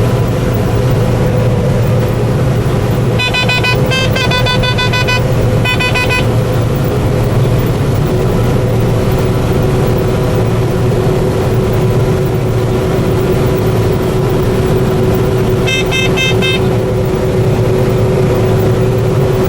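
Inside a combine harvester's cab during wheat harvest: the engine and threshing machinery drone steadily, a steady whine in the drone dropping slightly in pitch about eight seconds in. A cab alarm beeps rapidly in two spells, a few seconds in and again near the end.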